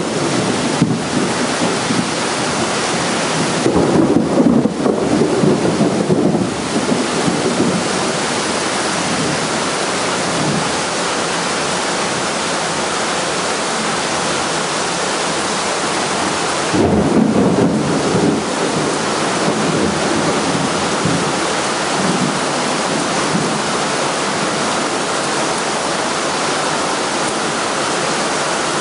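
Heavy thunderstorm rain pouring down as a steady hiss, with two louder rumbles of thunder, one about four seconds in and another around seventeen seconds in.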